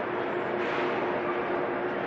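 Non-woven bag making machine running: a steady mechanical drone with a constant hum, and a brief hiss about a third of the way in that comes back every two and a half seconds or so with the machine's cycle.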